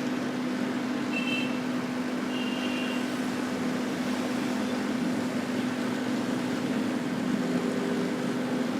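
Hot-air rework heat gun blowing steadily on a phone's circuit board, a continuous fan and airflow rush with a steady low hum, heating the solder to free the old charging jack.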